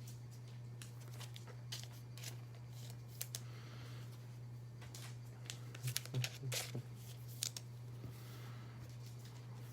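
Trading cards and their packaging being handled: scattered soft clicks, taps and rustles, busiest a little past halfway, over a steady low hum.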